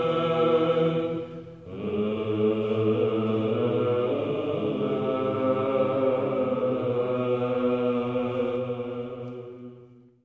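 Byzantine chant sung by a small group of male Orthodox monks: a melody over a steady low held drone (the ison), with a short breath about a second and a half in. The final held notes fade out near the end.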